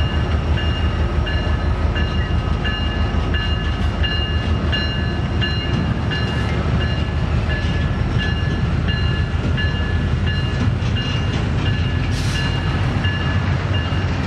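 Freight train rolling past, with a steady low rumble of diesel locomotives and wheel noise from double-stack container cars. Over it a grade-crossing bell rings in even strokes, roughly one and a half to two a second.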